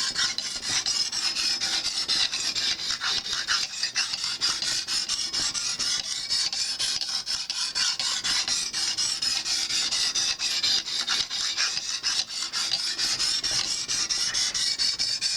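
Lansky fine (blue) hone stone, wetted with honing oil, scraping up and down a kitchen knife's edge in rapid, steady strokes.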